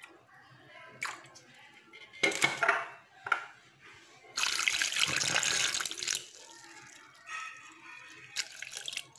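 Water poured from a small glass into a glass blender jar of papaya and yogurt, a steady splashing pour lasting about two seconds, about halfway in. A few brief handling knocks come before it.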